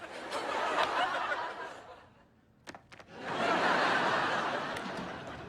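Sitcom laugh track: a wave of audience laughter that dies away about two seconds in, then a second, louder wave of laughter that slowly fades.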